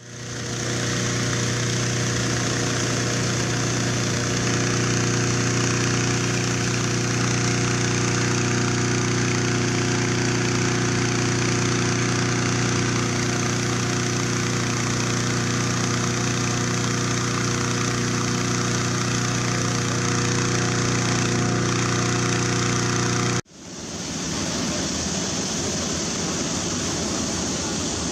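Small engine running at a steady, unchanging speed, close and loud. It cuts off abruptly a little over 23 seconds in, leaving an even rushing noise.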